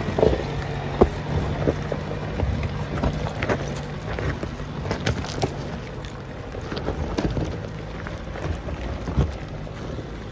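An off-road 4x4's engine running low and steady as it climbs a steep, shaly rock track, with stones crunching and knocking under the tyres throughout.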